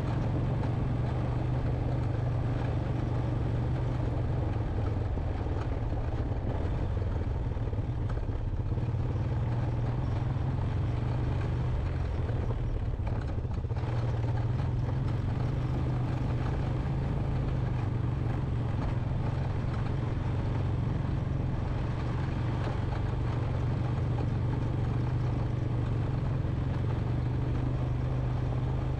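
Honda Recon 250 ATV's single-cylinder four-stroke engine running steadily under way, a constant low drone that holds the same pace throughout.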